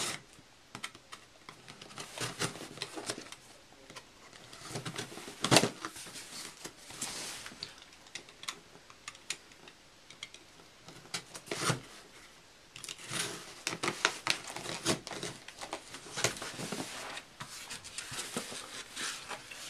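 Parcel packaging being handled and unpacked: rustling and crinkling with scattered clicks and taps, and one sharper knock about five and a half seconds in.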